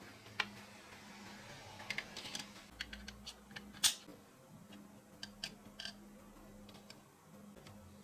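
Small parts being handled and tapped together: irregular light clicks and taps, the sharpest one just before four seconds in, over a faint steady hum.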